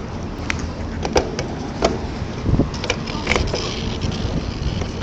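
Strong wind in a snowstorm, a steady low rumble with several sharp ticks and knocks scattered through it.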